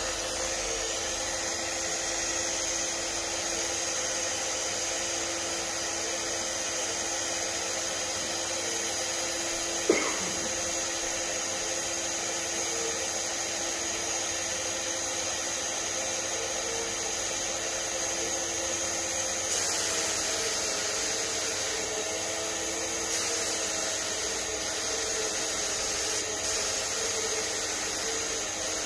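Turbine of an HVLP paint sprayer running steadily with a whine and airy hiss. The hiss grows louder about two-thirds of the way through as the spray gun sprays primer, and there is a single sharp knock about a third of the way in.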